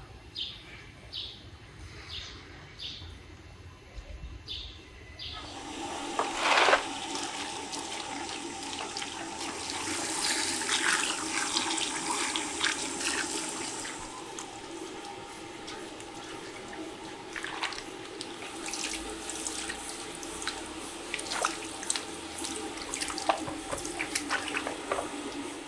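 A bird chirping about twice a second for the first few seconds, then water running steadily from a hose into a plastic tub of sweet potatoes, with scattered knocks and splashes.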